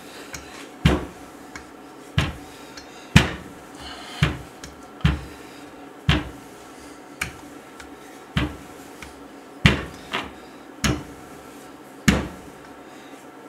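Marble rolling pin working scone dough on a countertop, clunking about once a second as it is rolled back and forth.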